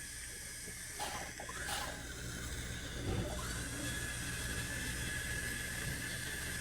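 Dental cleaning instrument starting up about three and a half seconds in and running with a steady high whine over a constant hiss, during a teeth cleaning.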